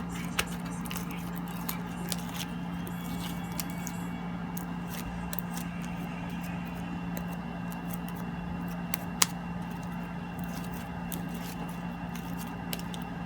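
Freshly made, sticky slime kneaded and pressed by hand, giving scattered sharp clicks and small pops, one louder snap about nine seconds in, over a steady low background hum.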